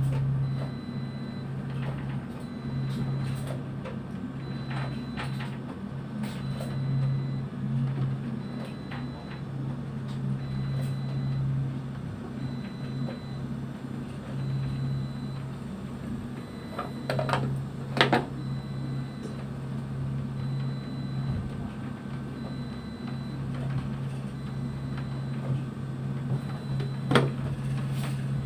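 A boat's engine running with a steady low drone. A few short knocks come about two-thirds of the way through and again near the end.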